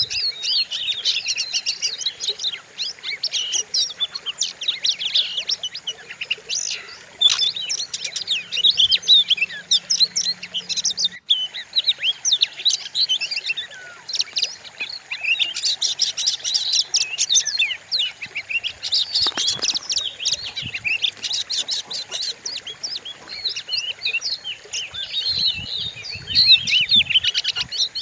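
Oriental magpie-robin (kacer) singing a fast, unbroken stream of varied chirps and whistles, with a momentary gap about eleven seconds in.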